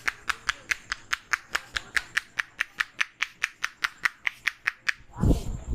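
Rapid, even hand tapping of an Indian head massage, clapping against the head at about five strokes a second. The tapping stops about five seconds in with a single loud low thump.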